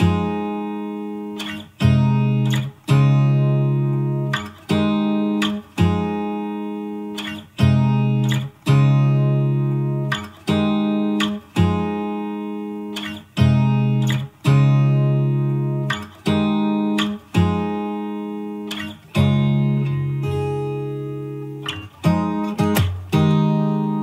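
Background music: an acoustic guitar strumming chords, roughly one a second, each struck and left to ring out.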